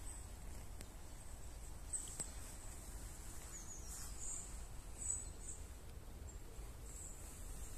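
Woodland ambience: small birds giving brief, very high-pitched chirps a few times, over a faint steady high tone and a low rumble.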